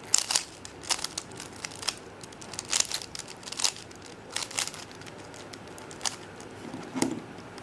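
3x3 Rubik's cube being scrambled by hand: its plastic layers turned in quick twists, giving short clicking rattles at irregular intervals.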